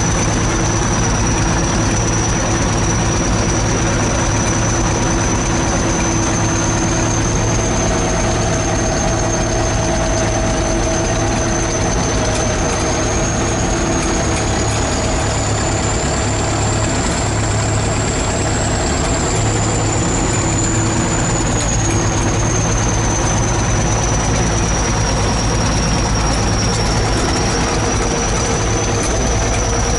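ChTZ T-170 bulldozer's diesel engine running steadily, with a thin high whine over it that rises slightly midway and falls back.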